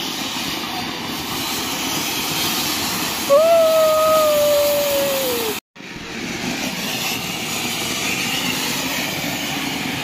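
Flower-pot (anar) cone fountain fireworks spewing sparks with a loud, steady hiss. The sound breaks off for a moment at a cut about halfway through, then a second fountain hisses. Before the cut, a held whistle-like tone rises over the hiss for about two seconds and falls in pitch as it ends.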